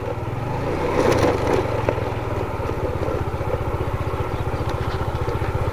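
Vehicle engine running steadily with an even, rapid pulse as it sets off again. It grows a little louder in the first second, then holds steady while riding on.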